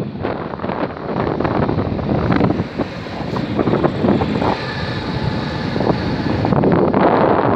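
Wind buffeting the microphone of a camera riding in a moving vehicle, in uneven gusts, over the rush of traffic and the vehicle's own running noise.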